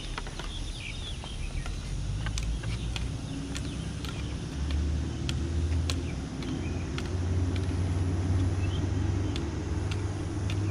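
A low, steady engine rumble that grows louder from about four seconds in, with scattered light clicks of a floorball stick tapping the plastic ball on concrete.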